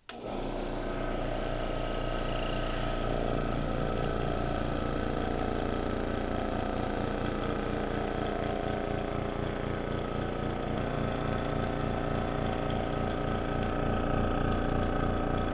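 Vacuum pump running steadily with a fast, even pulsing hum, drawing down an improvised vacuum chamber to degas freshly mixed epoxy.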